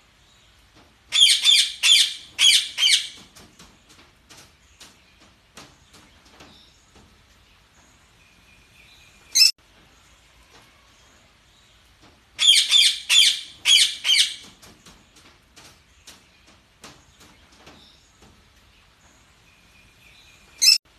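Parakeets chirping and chattering: two bursts of loud, rapid high chirps about eleven seconds apart, single sharp calls between them, and soft clicking chatter throughout.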